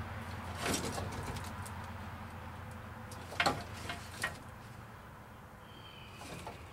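Faint clicks and rattles of hands working among the wiring behind a truck's stripped dashboard, over a steady low hum. The sharpest clicks come about three and a half and four seconds in.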